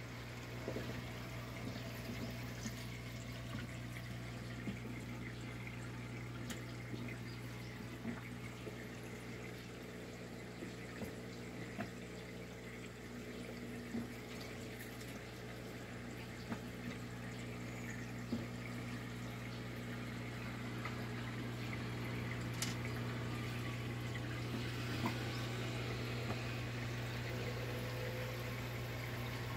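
Overhead aquarium filter running: water trickling down through the stacked filter trays, over a steady low hum from the filter pump.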